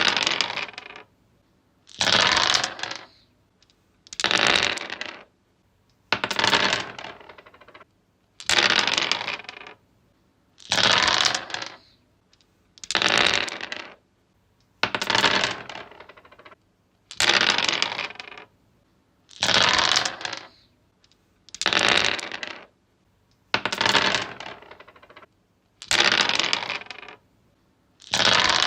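Dice rolled on a wooden surface, clattering and tumbling to rest, repeated about every two seconds, thirteen or so rolls in all with short quiet gaps between.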